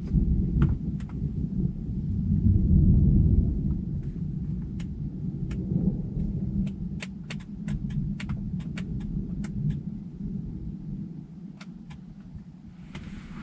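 Rolling thunder: a deep rumble that swells to its loudest about three seconds in, then slowly dies away. Scattered sharp ticks sound over the fading rumble.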